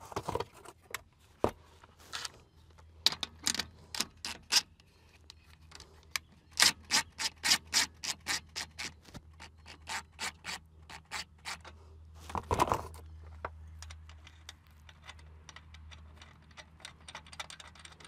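Hand ratchet clicking in quick runs as it tightens the clamp bolt on a semi truck's air brake chamber, mixed with metal rubbing and scraping. A single louder, longer noise comes about two-thirds of the way in.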